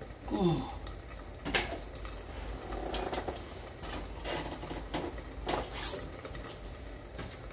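Kitchen handling noises: a short falling squeak about half a second in, then scattered clicks, clinks and short scrapes as dishes and utensils are moved about.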